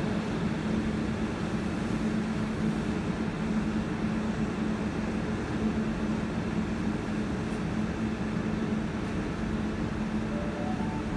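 Steady drone and rumble of a Canberra Xplorer diesel railcar's engine and running gear as the train pulls away, with a low hum that holds almost unbroken.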